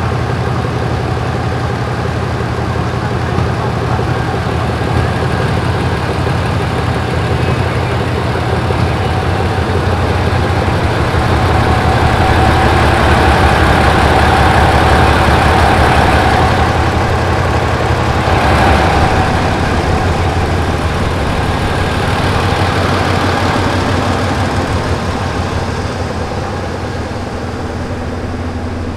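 Diesel engine of a General Electric GEK-class diesel-electric locomotive idling steadily. It grows louder around the middle, heard close to the engine-room grille, and eases off a little near the end.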